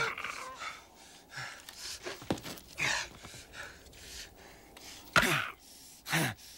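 A man breathing hard and grunting in short bursts with effort, among a few short knocks and scrapes of small objects being worked against wood.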